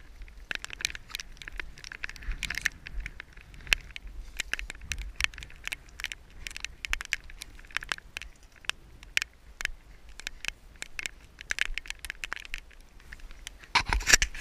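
Irregular close crackling and pattering from walking over wet field ground with a body-worn camera, footsteps and rustle in loose clusters about once a second, with a louder burst near the end.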